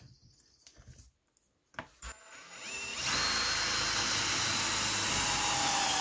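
Power drill with a twist bit drilling through a block of 2x6 wood. It is nearly quiet for about two seconds, then the motor spins up with a rising whine and runs steadily under load through the wood.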